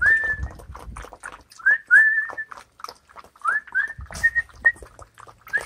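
Young Airedale terrier puppies whining: several short, thin, high whines, each rising and then holding, over light clicks and clatter as they crowd a pan of kibble.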